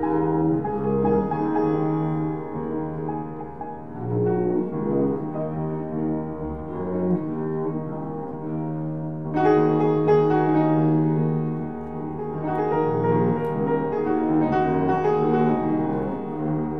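Live duet of bowed double bass and upright piano: the bass draws long held notes while the piano plays chords and runs. About halfway through, the music grows louder and brighter.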